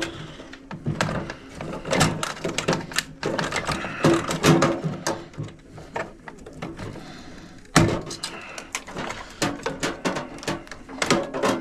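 Irregular clicks, knocks and clatter of hand tools and small metal parts while an old microwave oven is dismantled for scrap.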